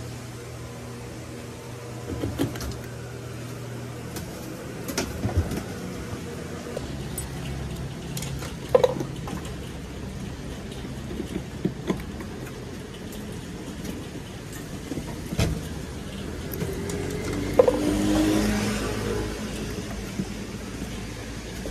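Claw machine in an arcade: a steady mechanical hum with scattered sharp clicks and knocks from the claw mechanism and prizes. A louder stretch of motor noise comes about three-quarters of the way through.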